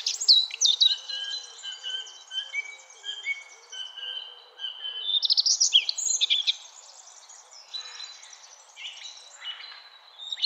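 Birds singing: a busy chorus of short chirps, repeated whistled notes and quick trills, over a soft steady rushing noise.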